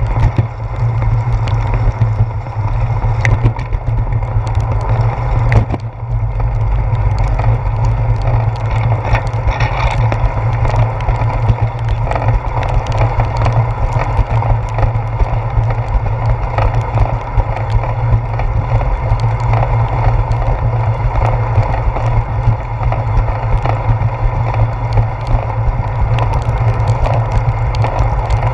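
Steady low rumble of wind buffeting and road vibration picked up by a handlebar-mounted GoPro as a bicycle rolls along a wet concrete path, with scattered small ticks and knocks.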